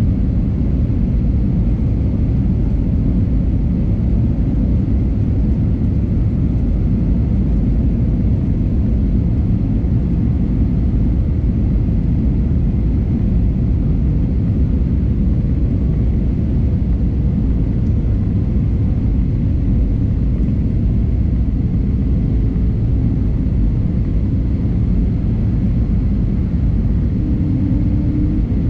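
Steady low rumble of engine and airflow noise inside the cabin of an Airbus A320neo, whose Pratt & Whitney PW1100G geared turbofans run at an even setting, with faint steady tones in the hum.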